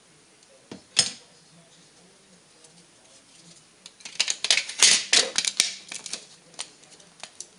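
Thin aluminium drink-can pieces being handled and worked by hand: a sharp metallic click about a second in, then a quick run of clicking and crinkling from about four to six seconds, with a few lighter ticks after.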